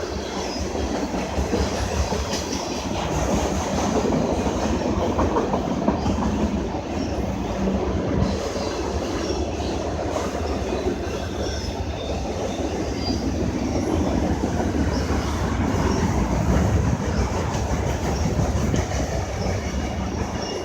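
A train rolling past close by, its wheels clacking steadily over the rail joints.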